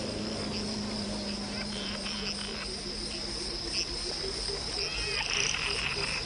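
Tropical jungle ambience: a steady high-pitched insect drone with a regular series of low frog croaks, several a second.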